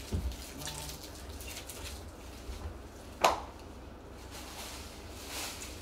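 Quiet tableware handling at a meal: chopsticks and takeout dishes being moved, with one sharp click about three seconds in, over a steady low room hum.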